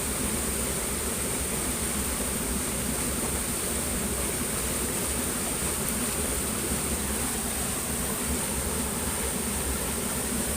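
Steady high-pitched insect trill, unbroken, over an even rushing hiss and low rumble.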